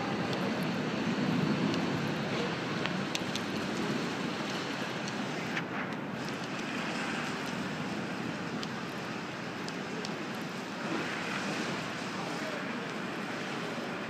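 Airport terminal forecourt ambience: a steady low rumble of vehicles and engines, with a few sharp clicks scattered through it.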